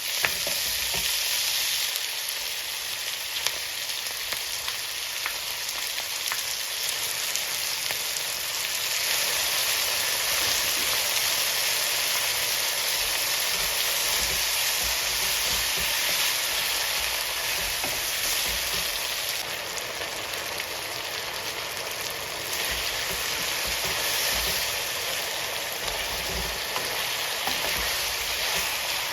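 Food frying in hot oil in a pan: a steady sizzle with scattered small pops, a little louder through the middle stretch.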